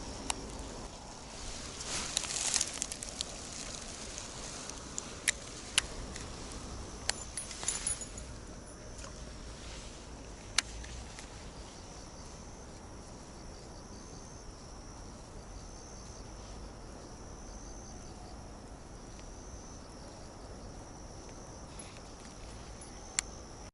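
Insects chirping outdoors in a steady high pulsing trill that carries through the second half. A few sharp clicks and a short rustle sound in the first half.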